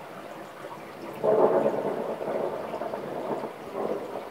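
Thunder: a clap breaks in suddenly about a second in and rumbles on unevenly, over steady rain.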